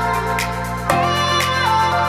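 Background music: held chords with a melody over them and a light, regular beat; the chord changes about a second in.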